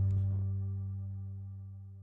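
Background music ending on a held low chord that fades out steadily.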